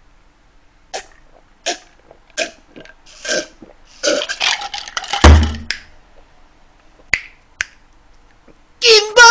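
A man gulping carbonated soda from a glass in several swallows, followed by a loud burp. Then come two sharp clicks and, near the end, a strained, rising vocal sound.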